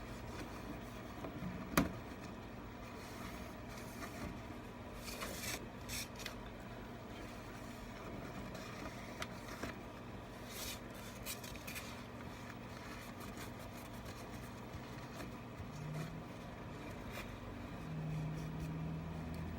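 Faint, uneven scraping and rubbing as leftover adhesive residue is worked off the iPad Pro's housing, with a sharp click about two seconds in. A low steady hum grows louder near the end.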